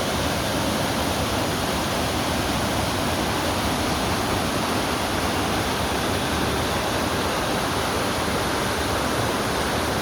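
Waterfall cascades rushing, a steady loud roar of falling water.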